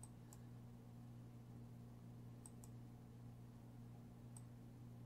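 A few faint computer mouse clicks, two of them in quick succession midway, over a low steady hum.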